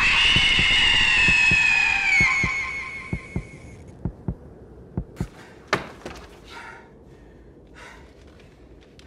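A shrill, high scream held for about four seconds and sliding slightly down in pitch, over a pounding heartbeat that slows into paired beats and stops about five seconds in. Soft heavy breaths and gasps follow.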